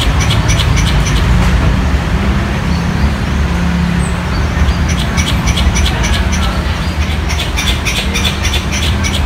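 A squirrel gives rapid, repeated sharp chattering calls, several a second: one run at the start, then a faster run from about five seconds in. This is a mating call. Under it runs a steady low rumble of city traffic engines.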